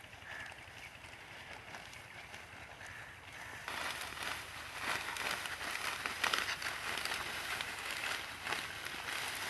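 Dry wheat stalks rustling and crackling, the sound starting about four seconds in and growing denser.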